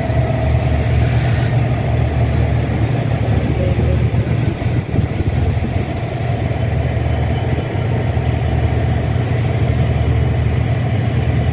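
Diesel locomotive engine running steadily with a deep, low rumble, with a brief hiss about a second in.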